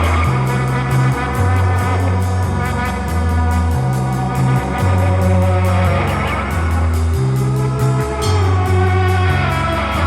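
Rock music soundtrack with electric guitar, bass and a steady drum beat.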